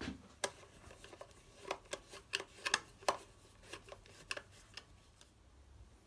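Irregular light clicks and taps of small hard parts being handled, several a second for the first three seconds or so, then sparser.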